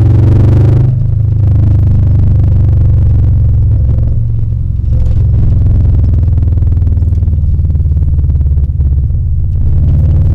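2000 Subaru Impreza 2.5RS's 2.5-litre flat-four running through an aftermarket Tsudo header, high-flow cat and cat-back exhaust, giving a loud, deep rumble at low revs. It is rougher and fuller for the first second, then settles to a steady rumble.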